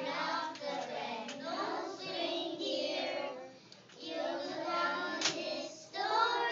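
A group of young children singing a song together, in phrases with short breaks between them; a single sharp click about five seconds in.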